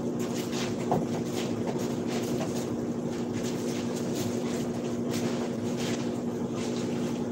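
A steady mechanical hum with a constant hiss under it, and a few light knocks of kitchenware handled at the counter, the clearest about a second in.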